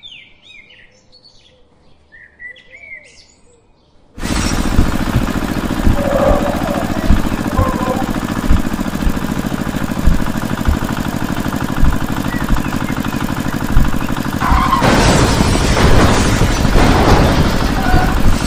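Birds chirp faintly for the first few seconds. Then a loud, steady engine sound starts suddenly and runs on with a regular thump about every second and a half, joined near the end by a few seconds of rushing noise.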